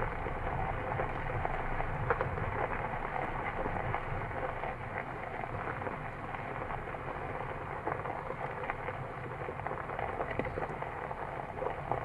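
Steady noise inside a jeep's cabin: the engine running under a crackling hiss, with scattered small ticks.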